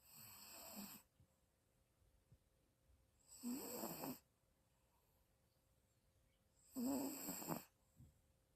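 A dog snoring in deep sleep: three snores about three and a half seconds apart, each lasting about a second, the first one softer than the other two.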